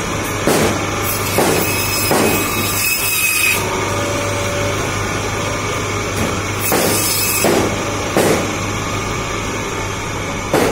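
Electric meat band saw running with a steady hum, with several short, louder cuts as bone-in meat is pushed through the blade.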